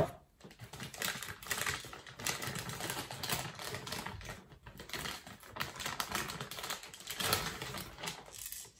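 Plastic wrapping crinkling and moulded egg-carton-style pulp packaging rustling in hands as a fish-finder display is unwrapped, a dense run of crackles. There is a sharp knock right at the start.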